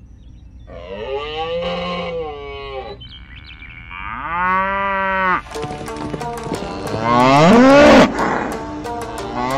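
Cattle mooing: several long moos one after another, each rising and then falling in pitch, the last ones louder and overlapping.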